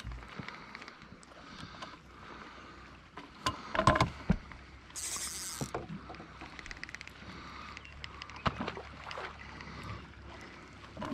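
A hooked fish splashing at the surface beside a small boat as it is reeled in, with water lapping at the hull. A few sharp knocks about four seconds in are the loudest sounds, followed by a short burst of hiss.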